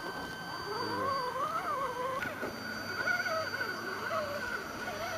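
Electric motor and gearing of a 1/10-scale Axial SCX10 RC rock crawler whining under throttle, the pitch wavering up and down as the throttle is fed in and eased off.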